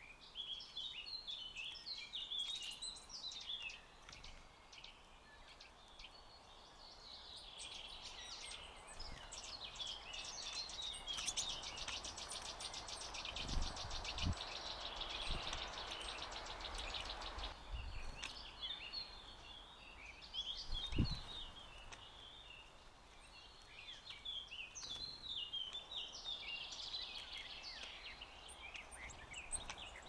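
Small songbirds chirping and calling, with a fast, rattling trill in the middle stretch. A few dull thumps come about halfway through, the loudest a little past two-thirds of the way.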